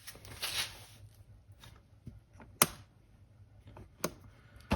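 Plastic dome light cover being fitted back on: a brief plastic scrape, then three sharp clicks as it is pressed into place.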